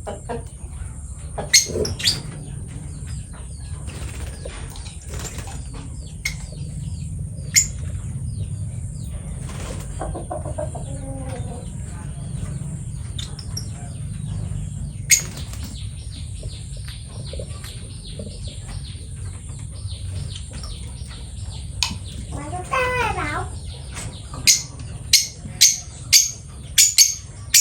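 Lovebird chirping now and then, with scattered sharp taps and a quick run of taps near the end, over a steady low hum.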